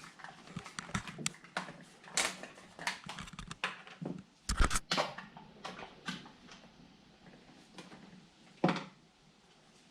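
Irregular clicks, taps and knocks of plastic motor-oil containers and caps being handled, with two louder knocks about four and a half and eight and a half seconds in.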